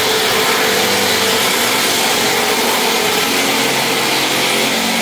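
Loud, steady machine noise, an even whirring hiss with a faint hum under it, starting abruptly.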